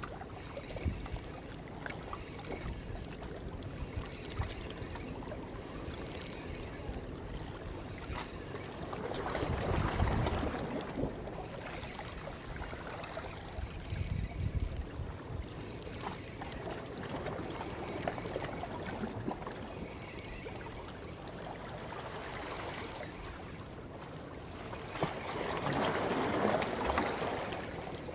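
Sea water lapping and washing at the shore, swelling into two louder surges, one about ten seconds in and one near the end.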